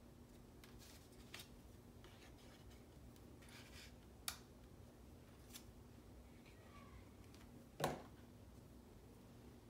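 Quiet paper handling: a few light clicks and taps and a brief rustle as small cut-paper pieces are pressed onto a cardstock scrapbook page, with the loudest tap near the end.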